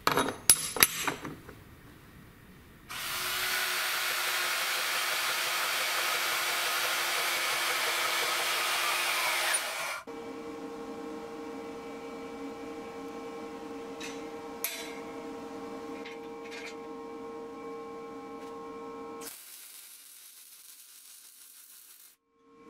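Metalworking sounds: a few sharp metal clinks as a steel plate is set against a chainsaw's body, then about seven seconds of loud, steady power-tool cutting noise that stops suddenly, followed by a quieter steady hum with a couple of clicks.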